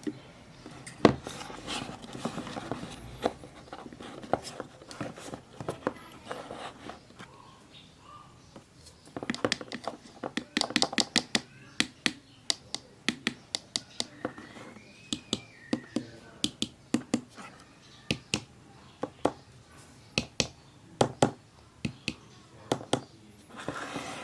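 Hands handling an unboxed LED light and its packaging: a run of sharp clicks and taps with soft rustling, coming thick and fast from about the middle on.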